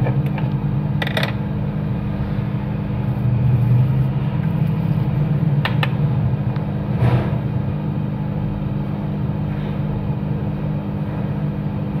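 A steady low machine hum throughout, with a few brief clicks about a second in and again around six and seven seconds.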